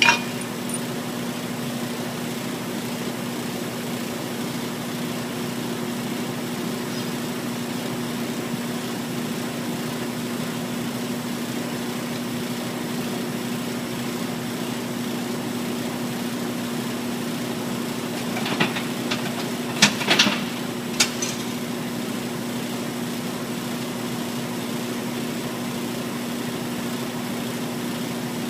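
A steady machine hum with two low tones. About two-thirds of the way in comes a cluster of sharp metal clinks, which fit the magnesium chainsaw case and small parts being handled and set down on a steel welding table.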